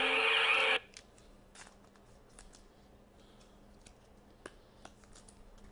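A battery-powered celebration horn sounding and cutting off suddenly about a second in; the owner says its battery needs replacing. Then faint clicks and rustles of a trading card being handled in its plastic sleeve.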